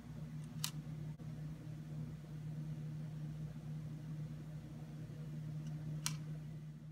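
Two light clicks, about half a second in and again near the end, as tiny plastic miniature spoons are handled and set down on a toy table, over a steady low background hum.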